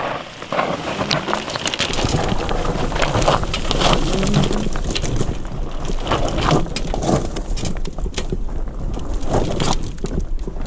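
Fat tyres of a homemade electric wheelchair built from two electric bikes rolling over loose rocks and gravel, with many sharp crunches, knocks and frame rattles. A low rumble joins about two seconds in.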